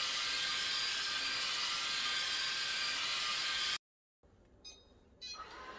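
ILIFE V5s Pro robot vacuum running in auto cleaning mode: a steady whirring hiss from its suction fan and brushes. It cuts off abruptly a little under four seconds in, and after a brief silence fainter, quieter sounds follow.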